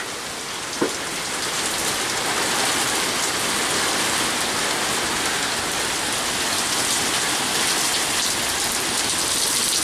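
Heavy rain pouring down steadily in a severe thunderstorm, with one small click about a second in.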